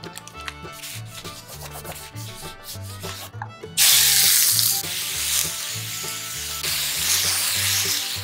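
Sliced pork dropped into hot olive oil in a rectangular tamagoyaki egg pan sizzles loudly, starting suddenly about halfway through and carrying on as it is stir-fried. Light background music with a repeating bass line plays throughout.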